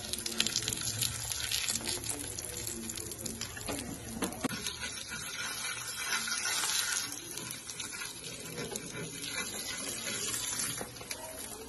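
Paratha frying in oil on a hot tawa: a steady sizzle with fine crackling and spitting throughout.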